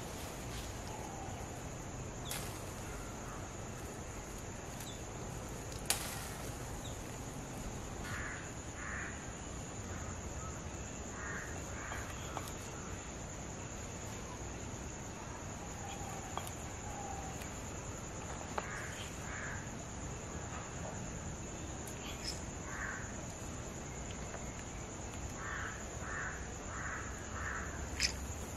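Crows cawing in short runs of two to four calls every few seconds, over a steady high insect drone. A couple of sharp clicks stand out, one about six seconds in and one near the end.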